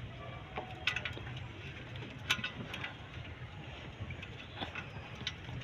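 Scattered light clicks and knocks of parts and tools being handled while a catalytic converter and its gasket are fitted in a car's engine bay, over a steady low hum.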